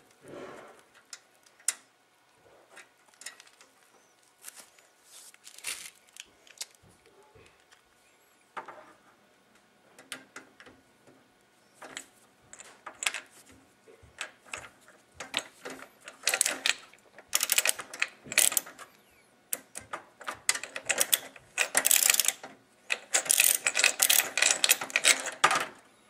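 Screw being fitted and driven with a screwdriver into the metal expansion-slot bracket that holds a graphics card in a PC case. Scattered sharp metal clicks at first, then dense clicking and scraping through the second half.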